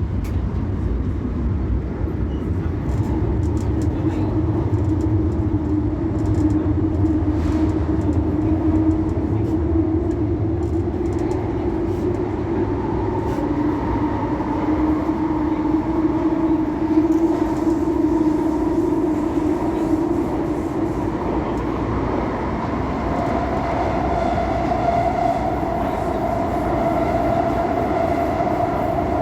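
CAF Série 500 Fase II metro train running between stations, heard from inside the car. A steady rumble of wheels on track is overlaid by the whine of the traction motors, whose several tones shift in pitch as the train runs.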